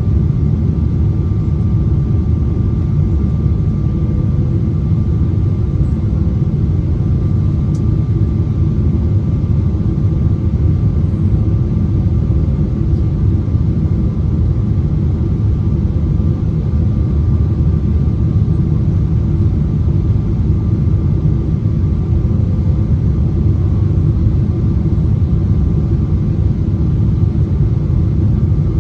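Steady low rumble inside the cabin of a Boeing 777-300ER on approach with landing gear down: airflow and engine noise, with a faint steady whine over it.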